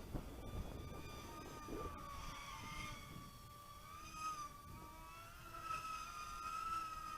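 Electric motors of a radio-controlled F-35 model plane in flight, a steady, fairly faint whine whose pitch swells up and dips back briefly a couple of times as the throttle changes, over light wind rumble on the microphone.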